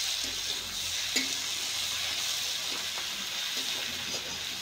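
Cauliflower and potato pieces sizzling steadily in mustard oil in a steel kadai while being stirred with a spatula, with a sharp tap of the spatula against the pan about a second in and a fainter one later.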